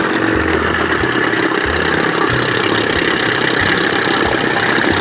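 Outboard motor running steadily, with no change in speed.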